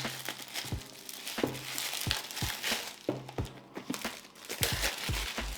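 Keyboard box packaging being opened by hand: crinkling and rustling, with scattered light knocks and clicks.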